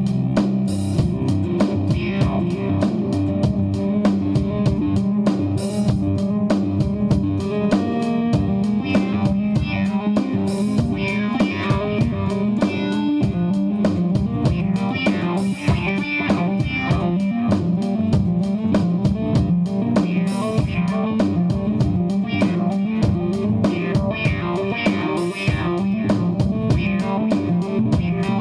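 Background music: guitar-led band track with bass and a drum kit keeping a steady beat.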